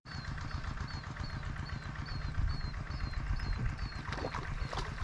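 A small engine running steadily with a low rumble, and a short high chirp repeating two or three times a second over it.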